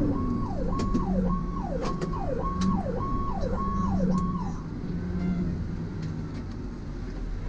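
Fire truck electronic siren in a fast yelp, sweeping up and down about twice a second, that stops about halfway through, over the truck's engine drone and road noise heard from inside the cab.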